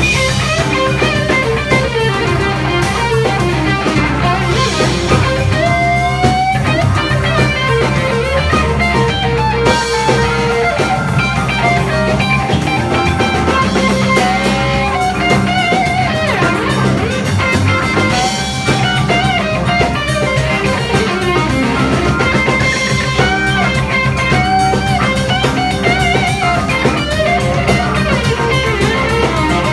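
Live rock band: an electric guitar solo with bent, sliding notes over a steady bass line and drums with cymbal crashes.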